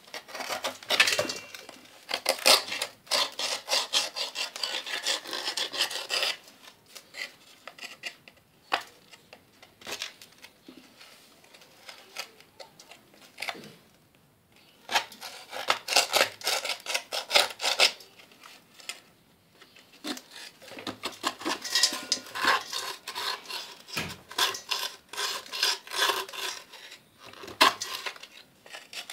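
A knife scraping dried clay from around the lid of a clay pot, in quick rasping strokes that come in bursts with short pauses between.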